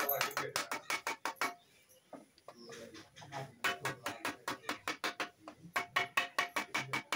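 Wooden mallet rapidly striking the edge of a galvanized steel sheet, about five or six blows a second, folding the edge over for a drum rim. The blows pause for about two seconds early on, then resume.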